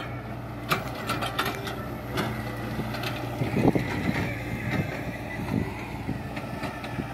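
Diesel engines of a Sonalika DI-745 III tractor and a hydraulic excavator running steadily, with scattered knocks and clanks.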